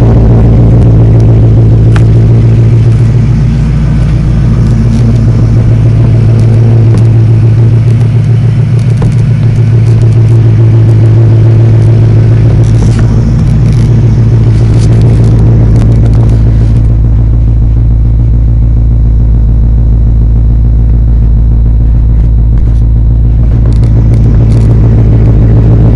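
1998 Jeep Grand Cherokee ZJ's Magnum V8, bored out to 5.3 litres, idling steadily and loud through long-tube headers, a test pipe in place of the catalytic converter and a Flowmaster Super 44 muffler, with the exhaust cutout closed.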